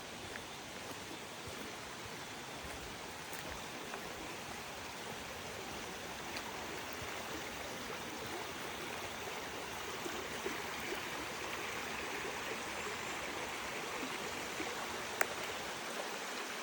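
Running water rushing steadily, growing a little louder in the second half, with one sharp click near the end.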